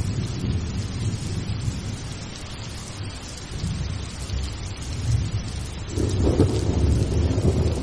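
Rain falling steadily with a low rumble of thunder beneath it; the thunder swells and grows louder about six seconds in.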